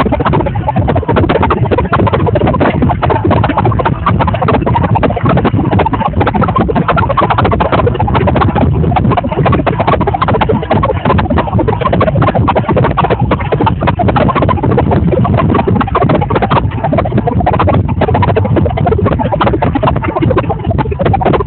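Large audience cheering and applauding, a dense, steady crowd noise without a clear tune.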